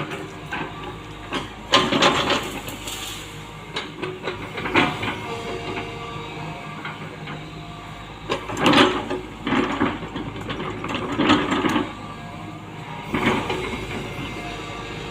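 Hitachi Zaxis 120 excavator working: its diesel engine runs steadily, with several short louder surges of noise as it digs and moves material.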